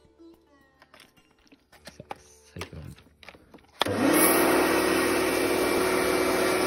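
Kärcher K2 electric pressure washer: for the first few seconds only small clicks of the lance and a nozzle being handled, then about four seconds in the motor starts with a short rising hum and runs steadily under the hiss of water spraying from a cyclone (rotating-jet) nozzle.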